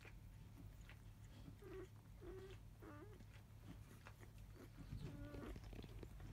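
Five-day-old Labrador Retriever puppy giving about four faint, short squeaks, the last one a little longer.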